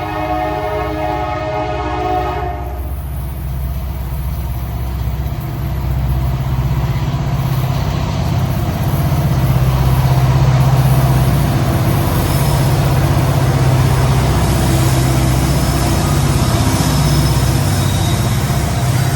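Diesel locomotive's multi-note air horn sounding, cutting off about three seconds in. The locomotive engines then run loudly as the train passes, with steady rail noise from the wheels.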